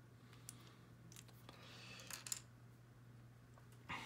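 Near silence with a few faint clicks and taps of small plastic parts being handled, as snap-in side mirrors are fitted to a plastic toy car. A low steady hum lies underneath.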